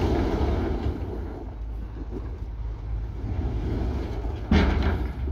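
Diesel engine of heavy earthmoving machinery running with a steady low rumble. A sudden, louder burst of noise comes about four and a half seconds in.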